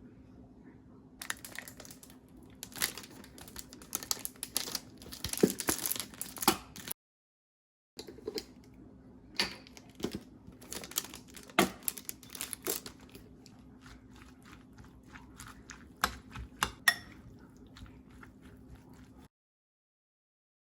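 Kitchen handling sounds: irregular crinkling, clicks and sharp knocks over a low steady hum, cut off twice by brief gaps of dead silence.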